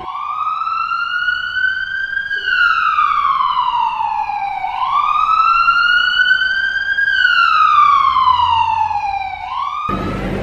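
Emergency vehicle siren in a slow wail, rising and falling in pitch twice, each rise and fall taking about five seconds. It breaks off near the end just as it begins to rise again.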